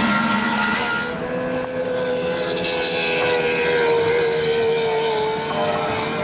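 Outboard engines of racing boats running at speed. The engine note falls slowly in pitch from about a second and a half in, as a boat passes.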